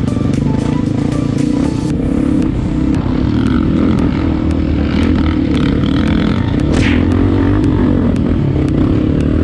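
Honda CRF250F dirt bike's single-cylinder four-stroke engine running steadily under load while riding a rocky trail, with a brief scraping rattle about seven seconds in.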